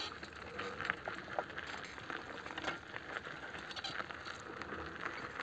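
Quiet outdoor ambience with scattered faint crackles and clicks at irregular times.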